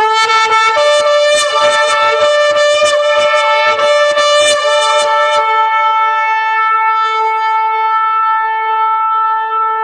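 A long, steady horn-like blast on one held note. A second, higher note sounds alongside it from about a second in until nearly halfway, and crackling clicks run through the first half.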